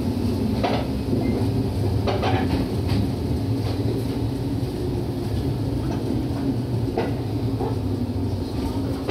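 Shinano Railway 115 series electric train heard from inside the car while running: a steady low rumble and hum, with irregular wheel clacks over rail joints every second or two.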